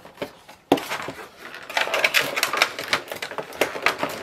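Clear plastic packaging insert and cardboard box of a Funko Pop being handled and pulled apart: a rapid, irregular run of crackles and clicks that starts sharply about a second in.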